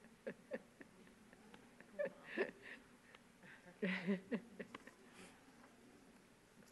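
Soft, brief murmured voices and breathy sounds from people standing close together, in three short bursts in the first four seconds or so, with scattered small clicks and rustles.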